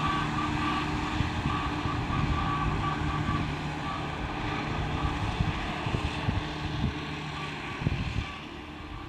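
A 1953 Oliver 88 tractor's six-cylinder diesel engine running steadily, growing quieter near the end.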